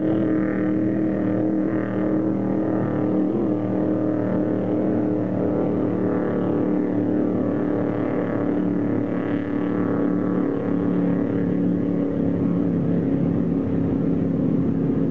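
Offshore racing powerboat's engines running at speed in a steady, even drone.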